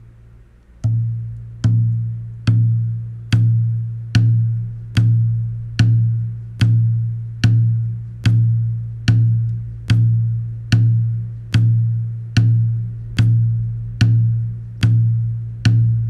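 Hand drum struck at a slow, steady pulse, about one beat every 0.8 seconds, starting about a second in; each beat has a sharp attack and a low, ringing tone that fades before the next.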